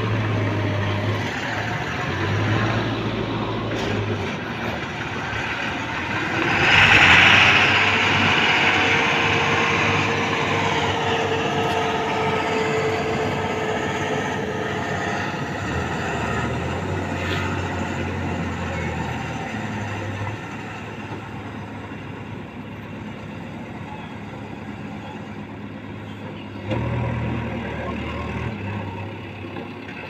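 Bharat Benz tipper truck's diesel engine running steadily while the truck manoeuvres into place beside a backhoe loader, with a loud hiss-like burst about seven seconds in.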